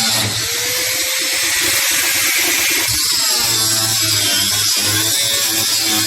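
Railway machinery running steadily: a low electric hum under a loud high-pitched whine and hiss.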